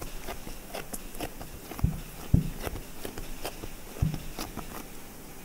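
Hands pressing and folding soft, sticky youtiao dough in a glass bowl: irregular soft thuds and faint sticky clicks, with a few louder thumps about two and four seconds in.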